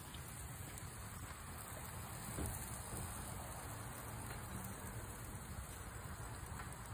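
Steady, low outdoor background noise, with a soft thump about two and a half seconds in.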